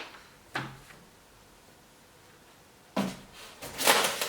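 Rustling and handling of packaging as parts of an RC plane kit are lifted out of the box. It is quiet at first after a brief sound, then rustles louder toward the end.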